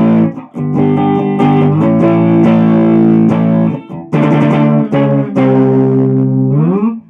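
Electric guitar played through an amplifier on a Gibson Les Paul's bridge humbucker with 50's wiring and the tone control full up: strummed chords left to ring, with short breaks between them; the last chord slides up in pitch and is cut off near the end.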